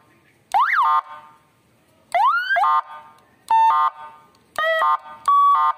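12-volt 100-watt seven-tone electronic car siren, through its horn loudspeaker, giving five short blasts of different tones as its controller buttons are pressed in turn: one that rises and falls in pitch, one rising whoop, and steady tones. It is a test after wiring in its own fuse, and it works.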